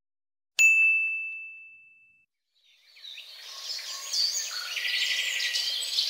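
A single bright ding about half a second in, ringing on one clear high tone and fading away over a second and a half. From about three seconds in, several birds chirp and sing over a soft outdoor background.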